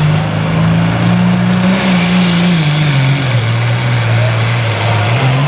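Limited pro stock pulling tractor's 640 cubic inch diesel engine running loud at high revs, its pitch sagging about three seconds in and climbing again near the end.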